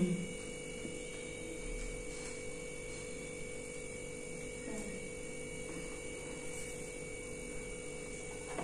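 Steady electrical hum made of a few constant tones over faint background hiss: room tone, with no distinct sound events.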